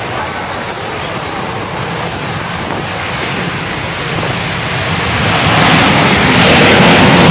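Wind buffeting the microphone over the distant noise of F-16 jet engines. The jet noise swells louder over the last couple of seconds as the jets begin their takeoff roll.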